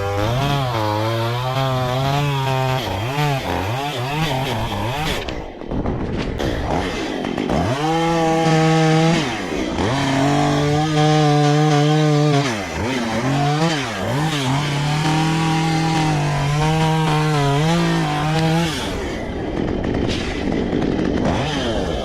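Two-stroke chainsaw engine revving up and down again and again, held at high speed for a second or two at a time between drops in pitch. Near the end the high-speed running stops and the saw falls back to a lower, rougher sound.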